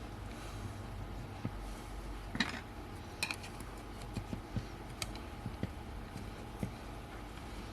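Small clicks, ticks and scrapes of a camera lens's parts and small tools being handled during disassembly, with two sharper scratchy clicks about two and a half and three seconds in, over a steady low hum.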